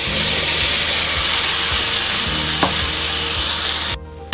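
Wet ground almond and cashew paste sizzling in hot ghee in a metal kadhai, with a spoon stirring it. The steady sizzle stops abruptly just before the end.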